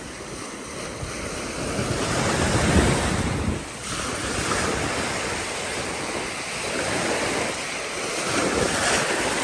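Small waves breaking and washing over the shallows in a steady, surging rush, with wind buffeting the microphone. The wash swells loudest about three seconds in, drops briefly, then builds again.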